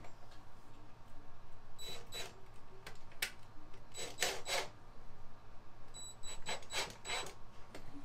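DeWalt cordless drill-driver driving small screws into a cabinet door hinge in several short bursts, about two seconds in, at three seconds, around four seconds and again from six to seven and a half seconds.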